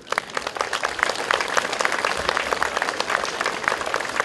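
Audience applauding: many hands clapping in a dense, even patter that starts suddenly.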